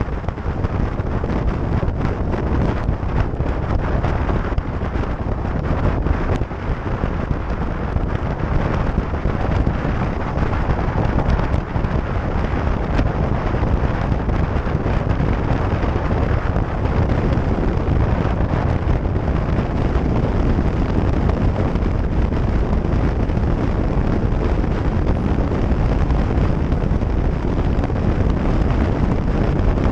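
Wind buffeting the microphone of a motorcycle cruising at motorway speed, over a steady low rumble of engine and tyres.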